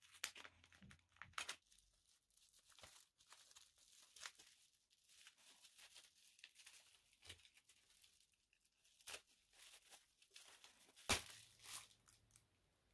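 Faint rustling, tearing and crinkling of paper wrapping and plastic bubble-wrap packaging as a parcel is slit open with a utility knife and unwrapped, in scattered soft crackles and ticks, a little louder near the end.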